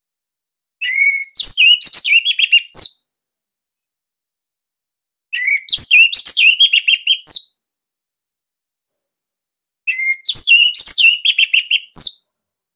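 Orange-headed thrush singing: three loud phrases of about two seconds each, made of quick, varied whistled notes, with pauses of a few seconds between them.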